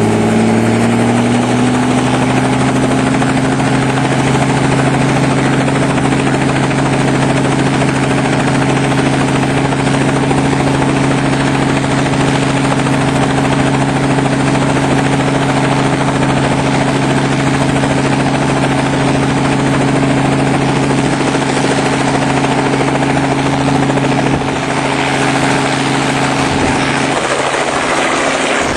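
Helicopter running with a loud, steady hum, its pitch rising a little in the first couple of seconds, then holding steady until the tone shifts near the end.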